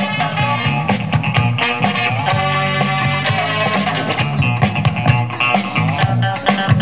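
Loud music with a steady drum beat and pitched instrument lines.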